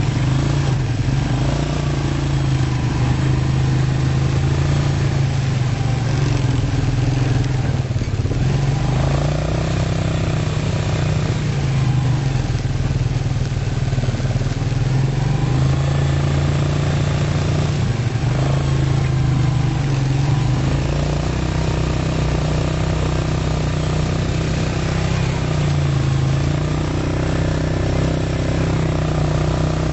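Quad bike (ATV) engines running while riding along a dirt track, the engine note rising and falling as the throttle is opened and eased off.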